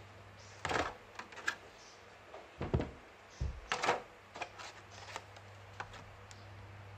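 Thin polycarbonate RC car bodies being handled and set down: irregular light plastic clicks, knocks and rustling scrapes, over a steady low hum.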